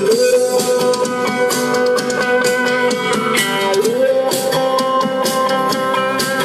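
Live band playing an instrumental passage of a rock song, with a held melody line that glides up about a second in and again near four seconds.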